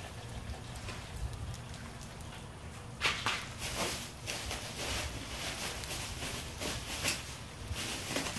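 Ice cubes crackling and popping irregularly as they melt on top of the hot crawfish boil, starting about three seconds in.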